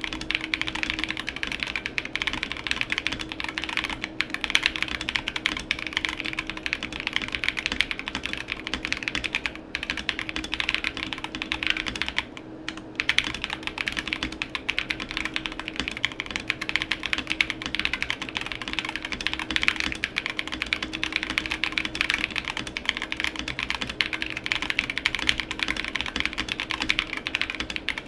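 Fast, continuous typing on a modded Drop ALT low-profile mechanical keyboard with Drop + Invyr Holy Panda tactile switches and MT3 keycaps, the key strokes clacking in a dense stream with two short breaks about ten and twelve seconds in. A faint steady hum runs underneath.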